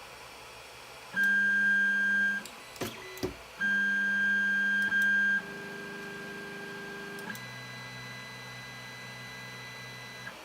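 Creality Ender 3 3D printer's stepper motors whining in steady tones as its axes move at the start of a print, the pitch changing abruptly as one move gives way to the next, with a few sharp clicks about three seconds in. The later tones are lower and quieter.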